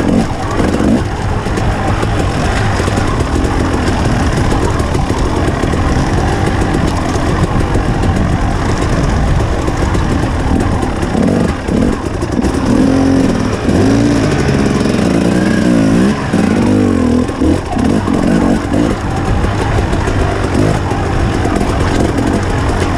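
KTM 300 XC's single-cylinder two-stroke engine under a rider's throttle on trail, revving up and down as it climbs and slows, with the throttle briefly chopped a couple of times.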